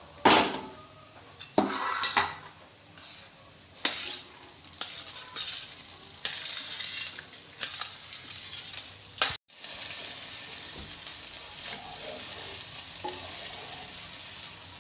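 Wooden spatula scraping and knocking against a nonstick kadhai while grated coconut and sugar fry, the sugar melting into the coconut. After about nine seconds, cooked rice goes into the pan and a steady frying sizzle runs on under the stirring.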